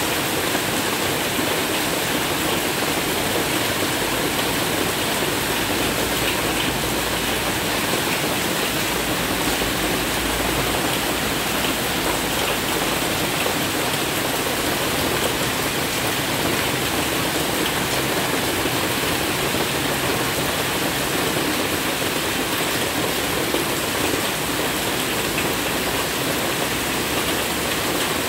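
Heavy rain pouring steadily.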